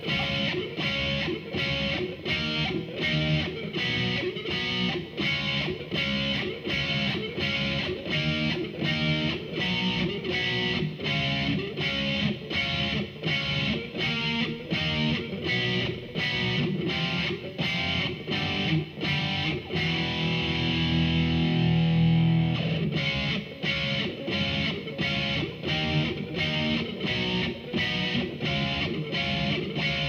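Overdriven electric guitar played through a Behringer V-Amp Pro amp-modelling processor: a rhythmic riff of about two strokes a second, with one stroke left ringing for a few seconds about twenty seconds in.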